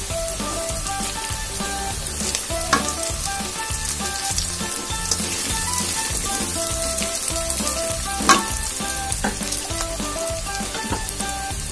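Onions, whole spices and red chilli powder sizzling and crackling in hot mustard oil in a steel kadai while a wooden spatula stirs them. There are a few sharp knocks, the loudest about eight seconds in. Soft background music plays underneath.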